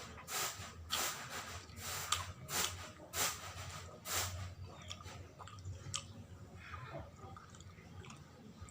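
Close-mic chewing of sawella, a sticky sweet of glutinous rice, coconut and palm sugar: a quick run of mouth sounds about twice a second for the first four seconds, then fewer and softer ones.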